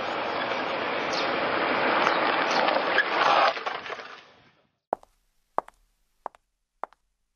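A golf cart rolls up with a rising rushing noise that cuts away about three and a half seconds in. Then hard-soled leather dress shoes step on a tiled walkway: single sharp clicks at an even walking pace, about one every two-thirds of a second.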